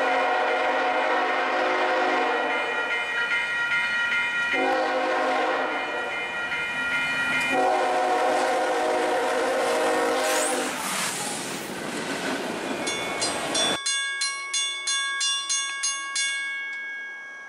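A diesel locomotive's multi-note air horn sounds three long blasts at a grade crossing, followed by the rumble of the locomotive passing close. Then a grade-crossing warning bell dings about three times a second, stops near the end, and its ring dies away.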